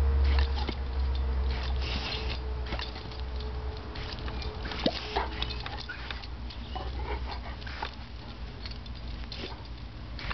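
Garden hose spray nozzle hissing in bursts and water pattering onto grass and a bullmastiff lunging at the spray, with scattered small clicks and the dog's mouth and paw noises. A steady low rumble lies underneath.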